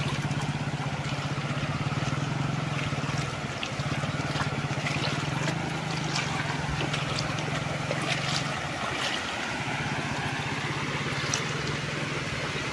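Motorcycle engine running steadily as the bike rides through shallow floodwater, dropping out briefly about two-thirds of the way through, over the steady rush of flowing water with small splashes.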